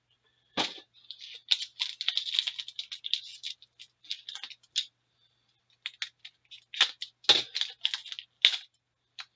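Foil wrapper of a trading card pack crinkling and tearing open, with cards being handled, in irregular clusters of crackles. There are a few sharper knocks: one just after the start, and two more about seven and eight seconds in.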